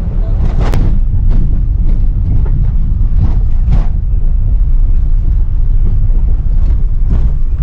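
Steady low road rumble of a vehicle driving, heard from inside, with a few sharp knocks and rattles from bumps in the road.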